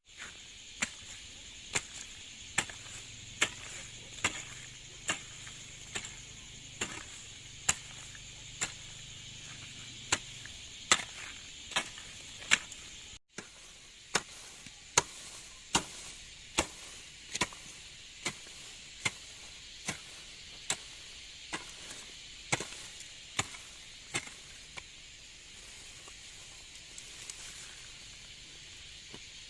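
Steady, even chopping strokes of a hand tool cutting into ground and vegetation, a little more than one a second, over a steady high hiss. The strokes stop near the end.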